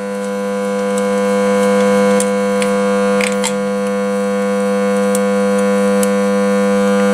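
A steady, even hum with several overtones, slowly growing louder, with a few light clicks as a compression tester's adapter is screwed into a spark-plug well.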